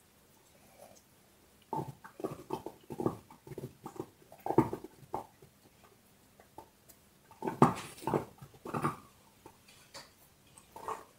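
A dog chewing and gnawing on a large bone: irregular crunching, grinding bites in two bursts of a few seconds each, with a short pause between them and a few more bites near the end.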